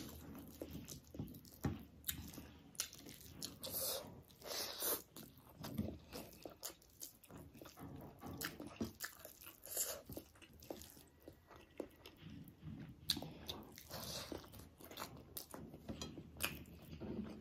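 A person chewing and biting a mouthful of chicken leg curry and rice: many irregular short clicks and snaps of eating.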